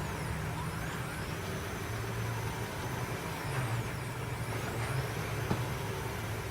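Machinery running with a steady low hum, with faint whines that glide up and down in pitch.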